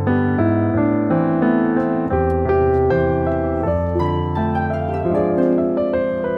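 Background music: a gentle instrumental tune of plucked harp-like and piano notes.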